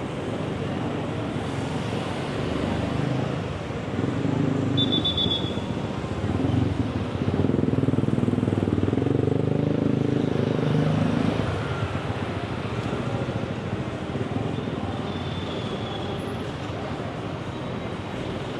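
City street traffic, with a motor vehicle's engine passing close and rising in a low rumble for several seconds before fading. There is a brief high beep about five seconds in.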